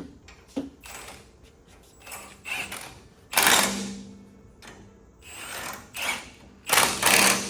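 Impact wrench firing in short bursts while running in the bolts of a brake caliper bracket. The two loudest bursts, about a second each, come a little over three seconds in and near the end, with shorter, quieter ones before each.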